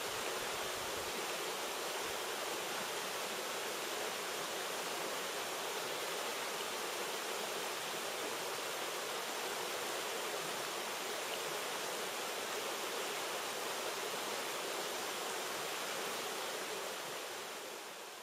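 Steady rush of a fast mountain stream: an even hiss of running water, fading out near the end.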